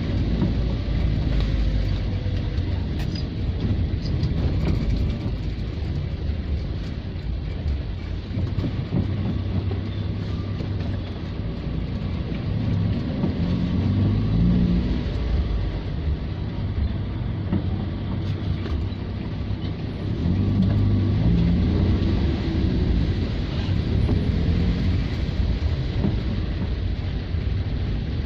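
Car engine and tyre noise heard from inside the cabin while driving slowly on a wet, partly flooded street. It is a steady low rumble that swells a couple of times.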